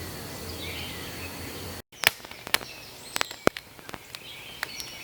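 Outdoor ambience with a steady high tone and a low hum. About two seconds in it cuts out abruptly, and a different quiet outdoor background follows with scattered sharp clicks and ticks.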